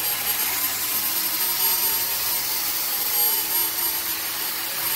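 Small electric disc sander running steadily with a high-pitched whirr as it sands down the boat hull with 80-grit abrasive to prep it for glue. Its pitch wavers slightly as the disc bears on the surface.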